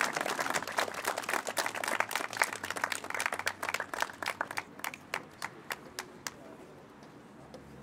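Audience applauding. The applause thins out about halfway through to a few scattered claps, then stops.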